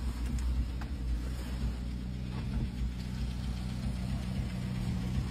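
Steady low mechanical hum, with a few faint ticks.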